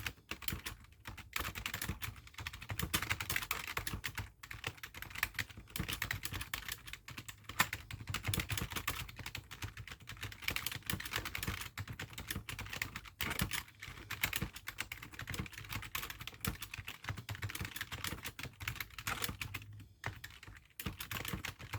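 Fast, continuous typing on a basic computer keyboard: a dense run of key clicks with a few short pauses, the longest near the end.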